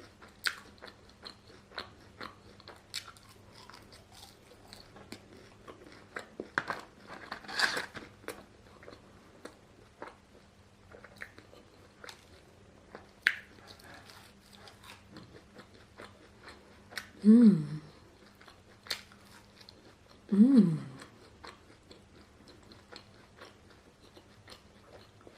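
Close-up chewing and crunching of crispy fried food, with scattered bites and mouth sounds. Twice, partway through, the eater gives a short hum that falls in pitch.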